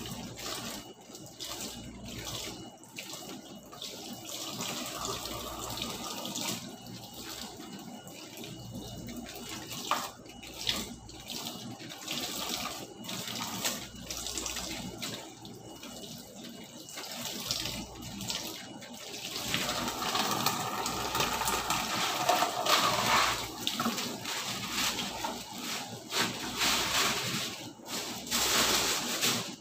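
Kitchen tap running into a sink, the stream splashing over hands and items being rinsed under it. The splashing grows louder and busier about two-thirds of the way through.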